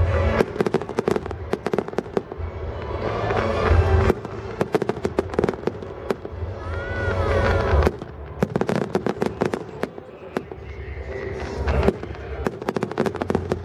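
Fireworks display: dense volleys of sharp bangs and crackles, the bursts swelling in waves that peak about every four seconds.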